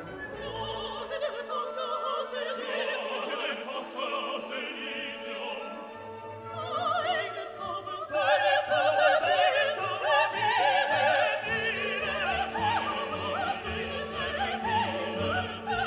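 Background music: operatic singing with orchestra, the voice wavering in a wide vibrato and growing fuller about seven seconds in.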